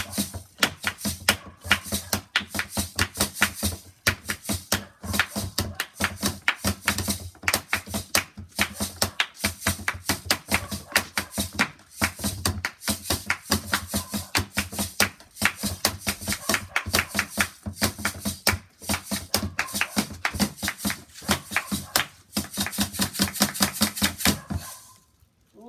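Hands drumming fast, steady beats on the hollow plastic lid of a garden stool, stopping about a second before the end.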